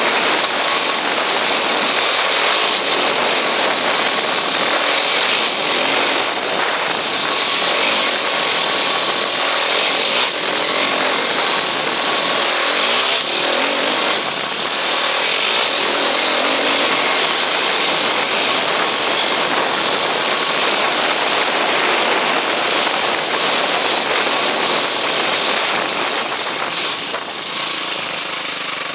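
Dirt bike engine running as the bike is ridden along a rough dirt trail, mostly buried under a steady rush of wind and riding noise on the helmet-mounted camera.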